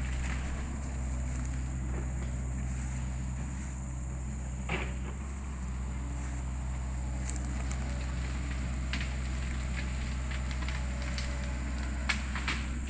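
Footsteps through dry grass and undergrowth over a steady low rumble on a phone microphone, with a few sharp snaps or crackles, one about a third of the way in and two near the end.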